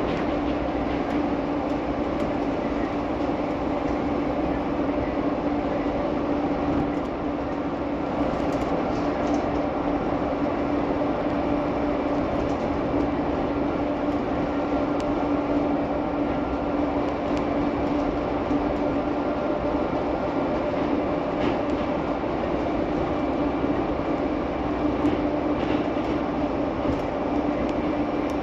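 PHX Sky Train, a rubber-tyred automated people mover, running at steady speed along its guideway, heard from inside the car: an even running rumble with a constant low hum.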